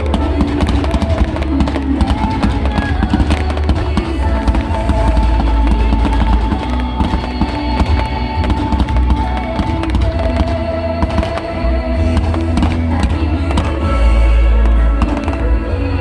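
Fireworks going off in rapid, dense bangs and crackles over loud music with a heavy bass.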